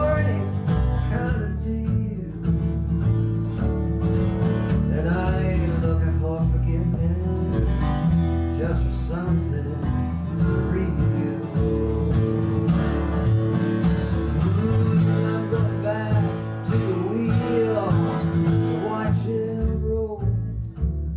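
Acoustic country/bluegrass-style music: an instrumental break with guitar over a steady low accompaniment and a lead melody that slides between notes.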